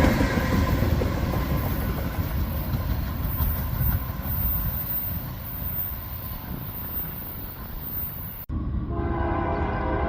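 Loaded crude-oil freight train rolling past, its wheel and rail noise slowly fading. After a cut about eight and a half seconds in, a CP AC44CWM locomotive's multi-chime air horn sounds a steady chord over its rumble.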